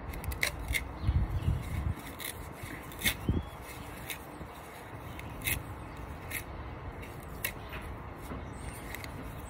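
Hands pulling tangled hair off a Dyson V8's plastic brush roll: scattered light clicks and rubbing of the roll being handled, with a few short low rumbles in the first few seconds.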